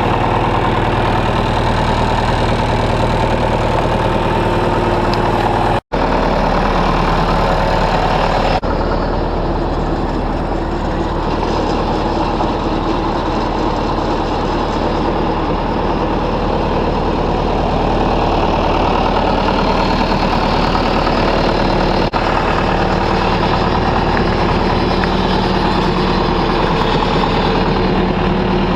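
John Deere 2140 tractor's three-cylinder diesel engine running steadily, with a brief break in the sound about six seconds in.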